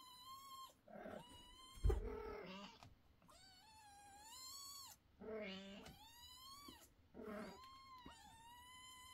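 Young kittens meowing over and over, thin high-pitched calls following one another with hardly a break, some short and some drawn out with a rising pitch. A single thump about two seconds in.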